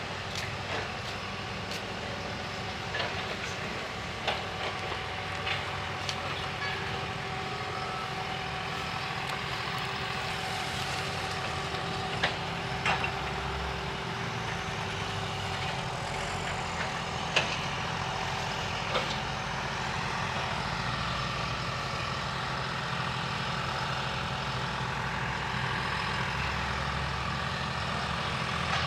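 Heavy truck engine running steadily, with scattered sharp knocks and clanks.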